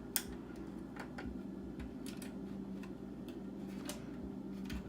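Scattered small clicks and taps of a metal hot-swap drive bay being worked into a computer case's drive slot, the sharpest click just after the start, over a steady low hum.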